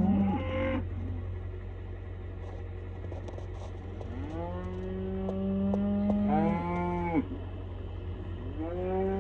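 Cattle bawling: a call tails off just after the start, a long drawn-out moo comes about four seconds in and lasts some three seconds, and another begins near the end.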